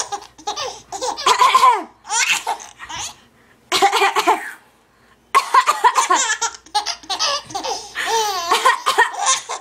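A three-month-old baby laughing in repeated bursts, with two short pauses a few seconds in.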